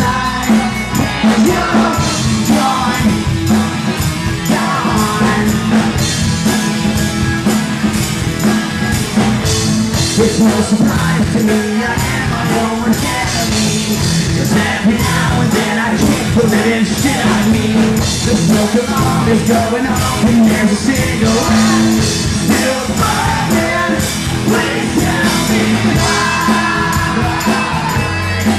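Live rock band playing: drum kit and electric guitar, with a male singer's vocals.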